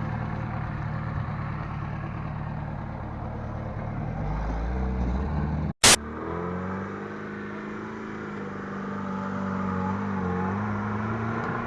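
Car engine running hard under load; its pitch climbs about four and a half seconds in. A sharp click comes near the middle, and after it the engine holds at steady high revs with a small dip near the end.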